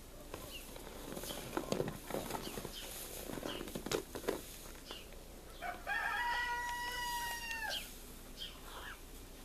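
Highland and Angus cattle munching and tearing at hay, with crunching and rustling through the first half. About six seconds in comes a single long, high call held at one pitch for about two seconds.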